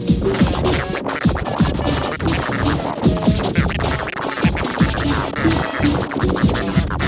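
Loud, dense music full of turntable-style scratching: short pitch sweeps jerked back and forth over quick irregular beats.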